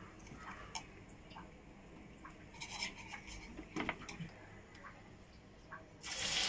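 Faint scattered clicks and taps, then about six seconds in a sudden loud sizzle of hot oil in a kadai as a batter-coated potato slice goes into it for frying into pakoras.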